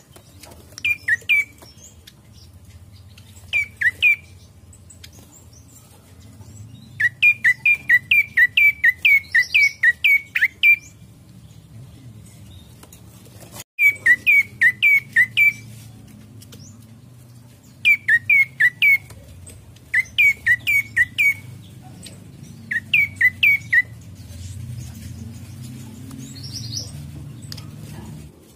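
Common tailorbird (prenjak coki) singing: loud, sharp chirped notes repeated about three times a second. The notes come in bursts of a few to about a dozen, with short pauses between, and the longest run is about a quarter of the way in.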